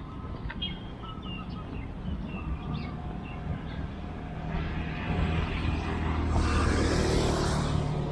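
Roadside traffic: a steady low hum with a few short high bird chirps, then a motor vehicle approaches and passes on the road, loudest about seven seconds in and fading away.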